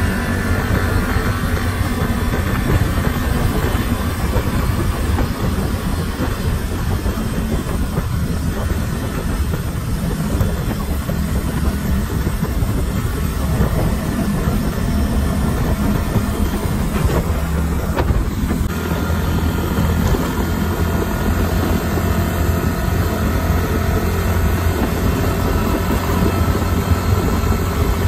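Yamaha Mio motor scooter running steadily at cruising speed: a continuous engine drone mixed with wind and road rumble from riding over an uneven road.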